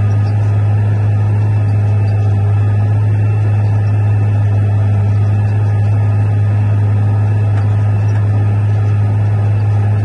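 John Deere 8410 tractor's diesel engine running steadily under load while pulling an air seeder, a deep, even drone.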